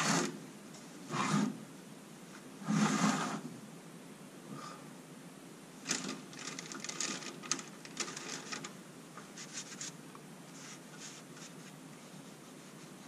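Hand-handling noises on a metal workbench: two short scraping knocks as the supercharger is shifted and turned on the bench top, then scattered light clicks of tools and sockets.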